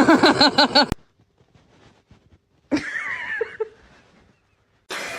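A dog yapping: a quick string of about six short, high calls that cuts off abruptly about a second in. A shorter gliding voice-like sound follows a couple of seconds later.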